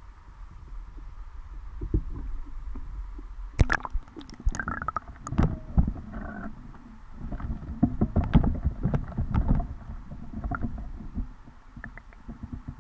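Muffled sound from a waterproof action-camera housing as it is lowered through the water and settles on the bottom: a low rumble with an irregular run of knocks and thumps from about three and a half seconds in, thinning out near the end.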